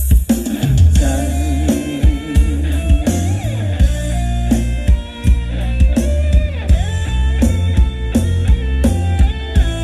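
Loud live rock band playing through a large outdoor PA, picked up by a camera microphone. The full band kicks in suddenly at the start: a bending guitar melody over a steady drum-kit beat and heavy bass.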